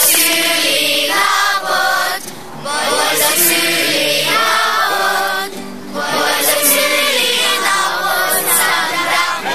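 A group of children singing a birthday song together in chorus, in sung phrases with short breaths between lines.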